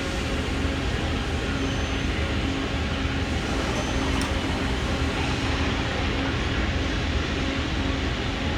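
Steady hum and noise of running industrial machinery, a constant low drone with a steady tone that never changes, and a faint click about four seconds in.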